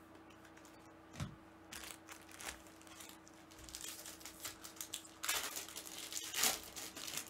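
Foil trading-card pack wrapper crinkling and rustling as it is handled by hand, with a light knock about a second in and louder crackles near the end.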